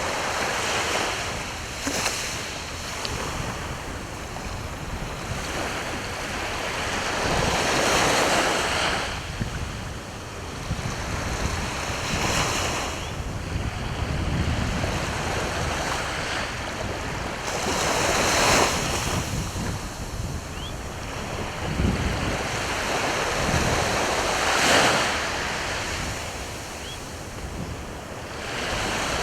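Sea waves breaking and washing onto the shore, the surf swelling and falling back every five or six seconds, with wind rumbling on the microphone.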